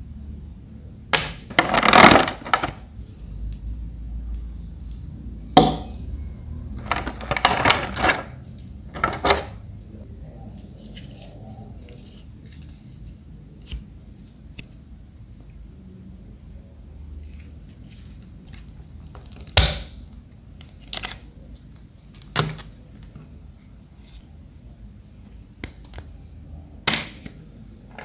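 Hard plastic parts of a handheld mini spray fan being handled and pried apart: scattered clicks, knocks and short rustles, with the longest bursts a couple of seconds in and around eight seconds, and single sharp clicks later on.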